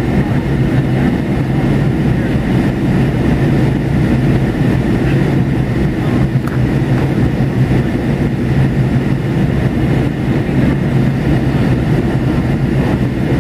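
Steady cabin noise of a McDonnell Douglas MD-88 climbing after takeoff, heard inside the cabin: the constant drone of its rear-mounted Pratt & Whitney JT8D turbofans and the rush of air, with a strong low hum.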